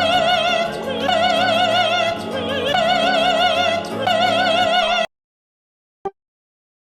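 Operatic female voice singing long held high notes with a wide, wobbling vibrato over a lower musical accompaniment, cutting off suddenly about five seconds in.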